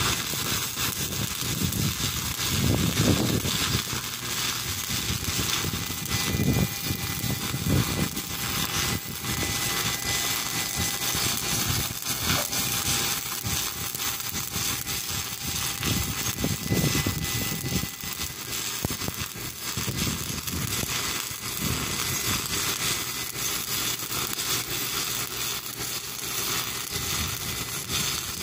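Stick-welding arc crackling and hissing steadily as an electrode burns against the steel.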